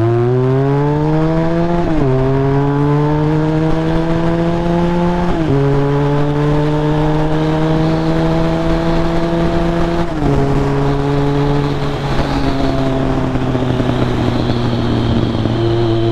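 Motorcycle engine pulling through the gears: its note climbs steadily and drops at each shift, three or four times, with steady wind noise on the helmet microphone.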